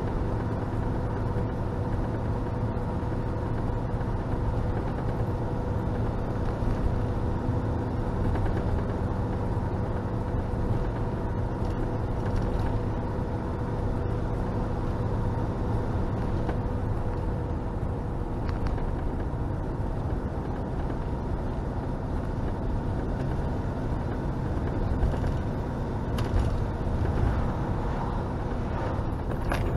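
Steady engine and road noise of a vehicle driving, heard from inside the cab, with a steady hum running through it.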